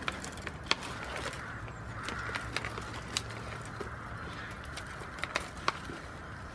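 Goat browsing on twigs at a fence: irregular sharp snaps and crunches as it bites off and chews the thin branches.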